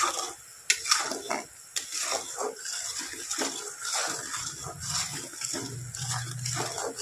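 Metal spatula scraping and clinking against a steel kadai in many irregular strokes, stirring sugar syrup as it boils.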